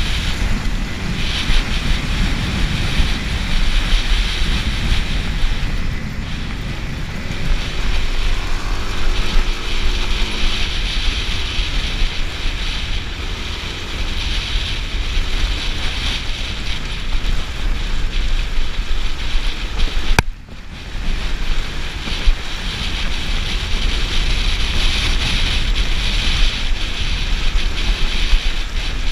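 Suzuki DR-Z400's single-cylinder four-stroke engine running as the bike is ridden over a rough, stony track, with mechanical rattling from the bike and wind buffeting the microphone. About twenty seconds in there is a sharp click and a brief drop in the sound.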